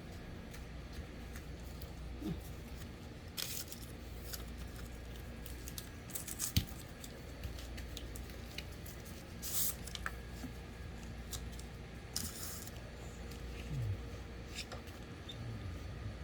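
Hands working on the plastic parts of an electric fan under repair: scattered clicks, taps and several short scraping rustles, with one sharper knock about halfway through, over a steady low hum.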